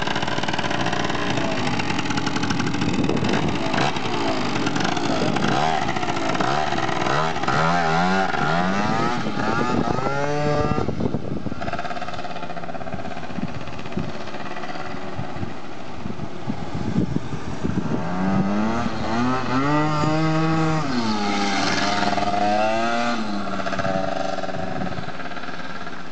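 Two-stroke engine of a Yamaha Aerox scooter with a Malossi Sport 70cc cylinder kit, freshly fine-tuned at the carburettor, revving up and down repeatedly. About halfway through it drops back to a quieter, steadier note, then swells again with pitch rising and falling as the scooter is ridden, and fades near the end.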